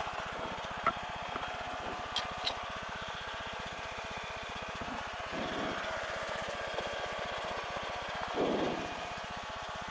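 Small plane's piston engine running at idle, heard from the cockpit as a steady, rapid pulsing hum. A few light clicks come about one and two seconds in.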